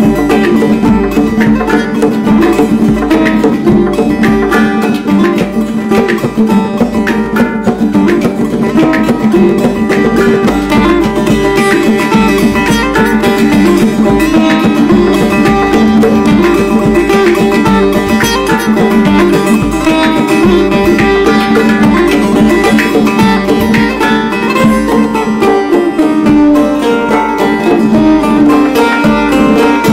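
Hang (handpan), setar and tombak playing together: the setar's plucked melody over the handpan's ringing notes and the tombak's hand strokes.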